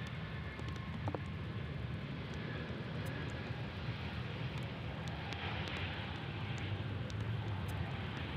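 Jet engines of an Airbus narrowbody airliner moving along a distant runway: a steady low rumble, with a broader rush of noise swelling about five seconds in.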